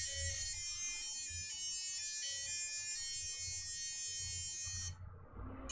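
Small brushless motors of an FPV quadcopter whining high and steady at armed idle, the pitch stepping slightly a couple of times, then stopping suddenly about five seconds in.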